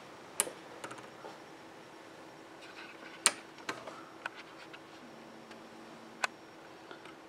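Scattered sharp clicks and light taps from a fiber-optic fusion splicer's fiber clamps and lid being handled, over a faint steady hum. A short low tone sounds about five seconds in and stops with a sharp click.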